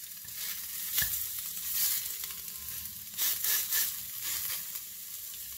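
Gold perch fillet sizzling in a little olive oil in a non-stick frying pan, the sizzle flaring louder several times as the fillet is lifted and turned with a fork. A light click about a second in.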